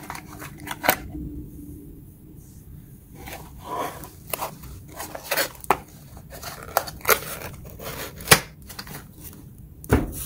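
A small cardboard box of steel impact sockets being handled and folded shut: irregular clicks, knocks and cardboard scrapes, the sharpest a little under a second in, about eight seconds in and near the end.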